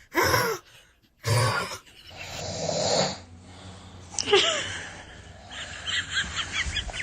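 Loud snoring: two short rasping snorts in the first two seconds, then a long drawn-in breath that swells and stops abruptly. A short squeal follows about four seconds in, and near the end comes a quick run of short laugh-like bursts.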